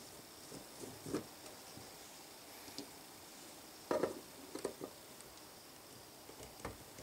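Flathead screwdriver working the stock screws in a Saiga rifle's receiver: a few faint metallic clicks and scrapes as the blade seats in the screw slot and turns, the loudest cluster about four seconds in.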